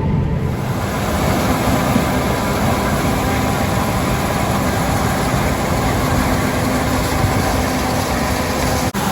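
Heavy farm machinery running steadily: a low diesel engine drone with faint steady hum lines and a rushing hiss that builds up within the first second. There is a brief dropout just before the end.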